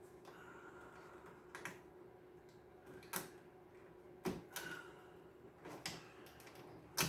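Scattered small clicks and knocks of hands working on wire connectors and parts inside an open cassette deck, about half a dozen sharp taps, the loudest about three, four and seven seconds in, over a faint steady hum.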